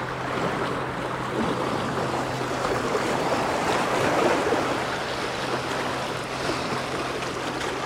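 Sea waves washing steadily against the shore, with a faint steady low hum underneath.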